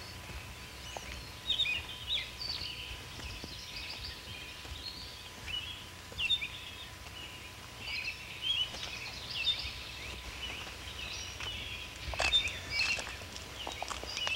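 Many small birds chirping in quick, short calls. A cluster of sharp clicks comes near the end.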